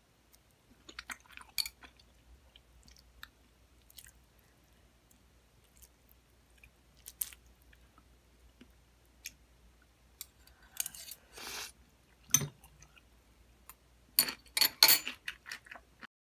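Eating instant ramyeon up close: noodles slurped and chewed in a few bursts, with scattered light clicks of metal chopsticks and spoon against the bowl.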